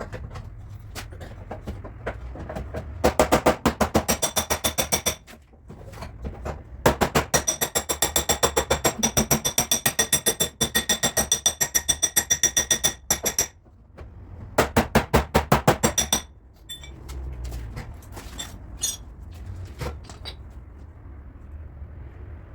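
Rapid hammering on a car's sheet-metal body panel, about seven ringing metallic strikes a second. The strikes come in three runs with short pauses; the middle run is the longest, about six seconds.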